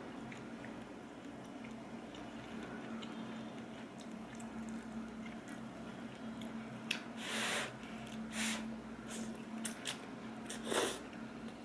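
Instant ramyeon being eaten: quiet chewing, then three short slurps in the second half, the first and loudest lasting just under a second, over a steady low hum.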